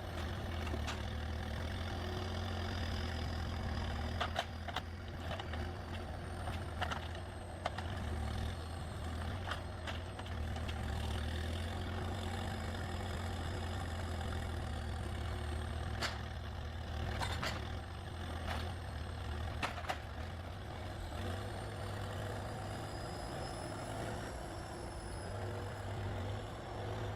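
A heavy forestry harvester's engine runs steadily in a low drone, with scattered clicks and knocks and faint high whines that rise and fall.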